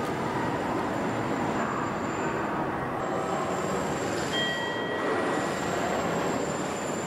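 Steady mechanical rumble and hiss of a railway station concourse after service has ended, with a faint thin high whistle throughout. A short electronic tone sounds about four seconds in, lasting about a second to two.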